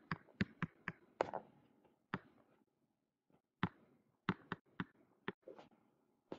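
Quick, sharp taps of a pen stylus on a tablet screen while handwriting an equation, one tap per stroke: a run of them in the first second or so, a pause in the middle, then another run.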